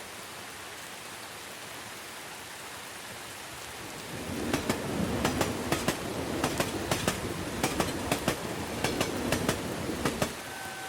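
Steady rain hiss. About four seconds in, a train passes for some six seconds, rumbling with rapid sharp clacks of its wheels over the rail joints, about three a second, before it fades back to the rain.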